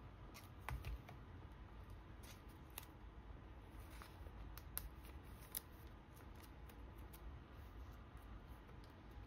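Soft plastic crinkling, rustling and small clicks as sleeved photocards are handled and slid into the pocket of a clear binder page.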